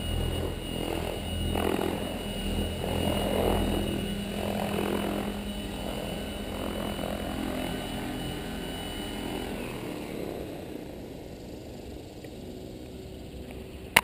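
Electric 700-size RC helicopter (Agile 7.2, Pyro 750 motor on 14S) with its main rotor turning and a steady high whine; the whine stops about nine and a half seconds in and the rotor noise fades as the blades coast down. A couple of sharp clicks at the very end.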